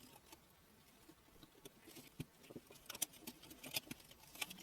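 Faint clicks and scratches of a small screwdriver backing out the screws that hold a graphics card fan, with small parts being handled. The clicks are sparse at first and come more often after about two seconds.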